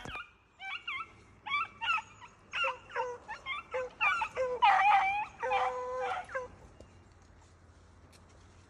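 Beagles barking in a string of short, high-pitched yelps, two or more voices overlapping around the middle, stopping about six and a half seconds in.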